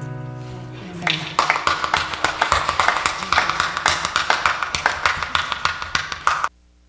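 The last acoustic guitar chord rings out and fades, then the congregation and band clap for about five seconds. The clapping cuts off suddenly.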